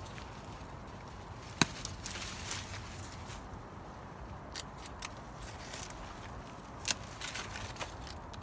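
Pruning shears snipping branches off a young loquat tree: a sharp snip about a second and a half in and another near the end, with smaller clicks and rustling of leaves and twigs in between.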